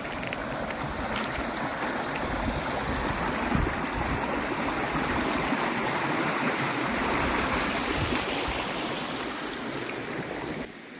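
Rushing creek water, a steady loud rush of flowing and splashing water that drops off abruptly near the end.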